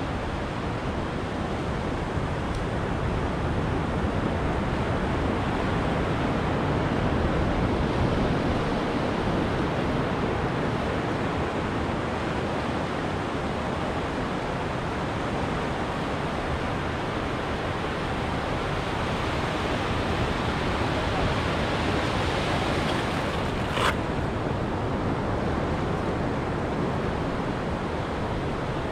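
Ocean surf washing steadily onto a beach, swelling louder twice as waves break. About 24 seconds in there is a single brief sharp click.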